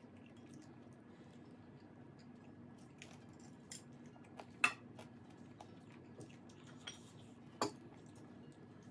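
Eating utensils clinking against dishes during a meal: several sharp clinks, the loudest about halfway through and another near the end, over a faint steady hum.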